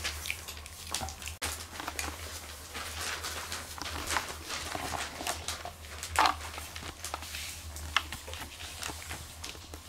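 Cotton de Tulear puppies moving about and playing on spread newspaper: a constant run of short paper rustles and small paw taps, the sharpest about six seconds in, over a steady low hum.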